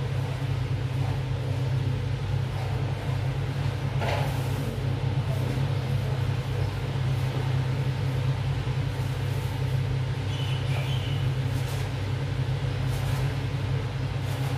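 A steady low mechanical hum with a few faint steady tones above it, unchanging throughout; a short soft knock about four seconds in.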